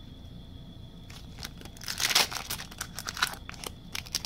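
Hockey card pack wrapper crinkling and tearing in scattered bursts as a pack is opened, loudest about two seconds in.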